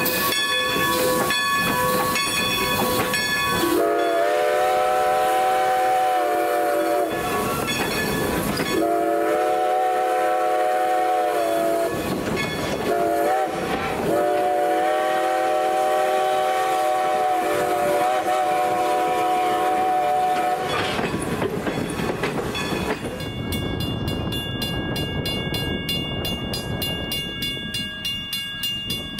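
Chime steam whistle of Strasburg Rail Road No. 90, a 2-10-0 Decapod steam locomotive, blowing long, long, short, long: the grade-crossing signal. The last blast is the longest, and hissing steam from the locomotive comes before the first.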